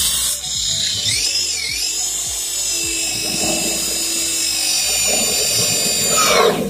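Corded electric drill running at speed while boring a hole into a polystyrene foam box. Its motor whine dips in pitch twice between one and two seconds in as the bit loads up, then holds steady and winds down near the end.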